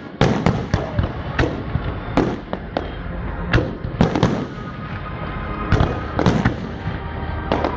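Aerial firework shells bursting in rapid succession during a display, about two bangs a second, each followed by a rolling echo over a steady low rumble.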